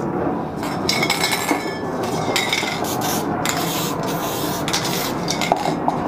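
Aerosol spray-paint cans hissing in several short sprays of a second or less, some with a faint whistle, mixed with metallic clinks and knocks of the cans being handled.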